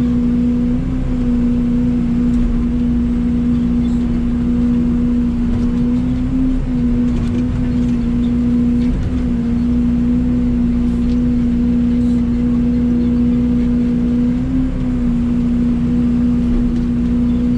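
Mini excavator's diesel engine running steadily at high revs, its pitch wavering slightly a few times as the machine works.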